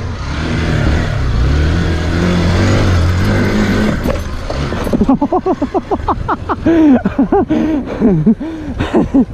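Motorcycle engine running steadily, then from about five seconds in revved up and down in quick succession, several rises and falls a second.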